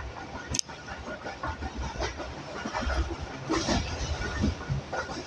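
Pakistan Railways passenger train running along the track: steady wheel rumble and rail noise with irregular clacks and knocks, and one sharp click about half a second in.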